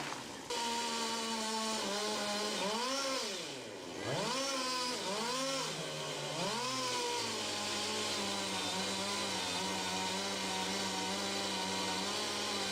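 Two-stroke chainsaw revving up and down several times in quick throttle blips, then running steadily at high speed.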